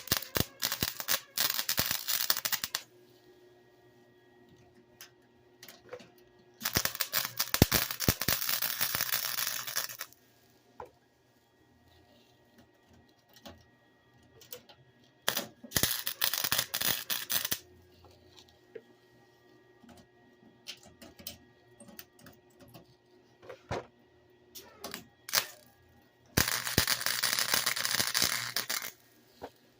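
Welding on a car door's sheet metal: four crackling bursts of two to three seconds each, with scattered faint clicks between them.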